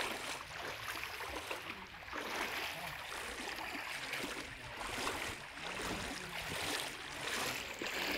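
Feet wading through shallow floodwater, the water sloshing and splashing with each step, roughly one step a second.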